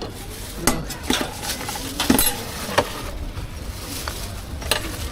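Metal utensils clinking and scraping against pans and containers as food is prepared at a street stall, with several sharp knocks spread through, some ringing briefly, over a steady low rumble.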